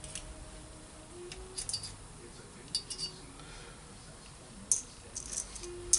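Valve keepers being picked out of a Harley-Davidson Sportster valve spring retainer in a valve spring compressor: light metal clicks and clinks in small scattered clusters.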